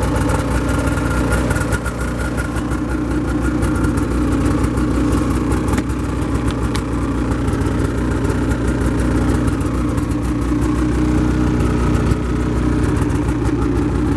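A 2008 Ski-Doo MXZ X 800R's two-stroke 800 twin idling steadily through a mild aftermarket exhaust can.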